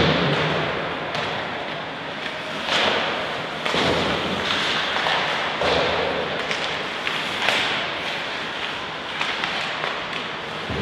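Ice hockey play in an arena: skates scraping the ice and several dull thuds, the loudest right at the start.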